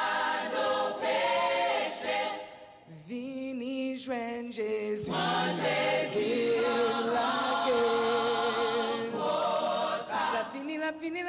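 A choir singing a gospel hymn a cappella in held chords with vibrato, dropping away briefly about three seconds in before the voices come back.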